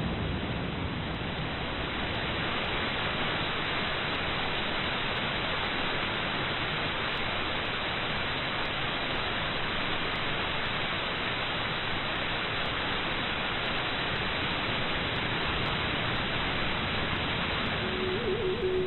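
Steady, even hiss of noise with no pitch or rhythm to it. A few held musical tones come in near the end.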